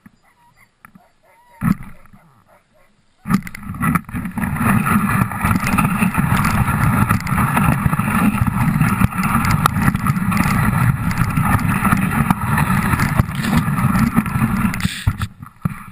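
Dog sled moving off and gliding over packed snow: runners scraping and the sled rattling with many small knocks, starting suddenly about three seconds in and running steadily until it fades near the end. A single knock comes about two seconds in, before the sled moves.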